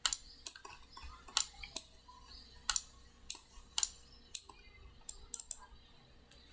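Computer mouse clicks and keyboard keystrokes: about a dozen sharp, separate clicks at uneven intervals.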